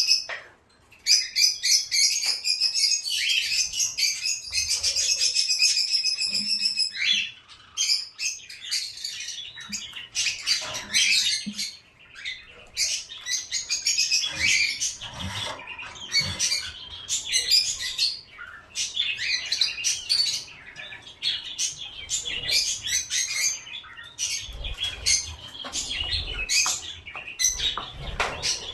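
Several caged pet birds chirping and chattering nonstop in rapid, overlapping high calls, with a brief lull about a second in. A few soft low thumps come near the end.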